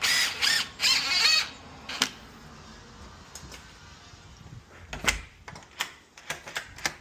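A squeaky, high-pitched scraping for about a second and a half, then scattered sharp clicks and knocks.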